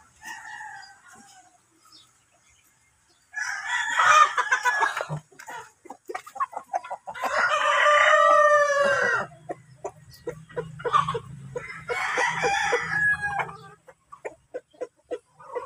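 Roosters crowing three times, about three, seven and twelve seconds in, with hens clucking in between.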